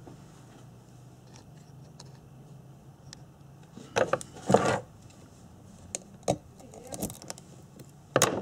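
Metal tools and parts being handled on a workbench: scattered clinks and rattles, loudest about four seconds in and again near the end, over a faint steady low hum.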